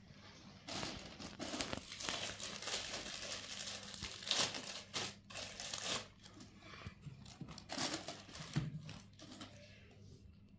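Plastic packaging crinkling and rustling as it is handled. The noise is densest for the first six seconds or so, then gives way to lighter handling with a few clicks.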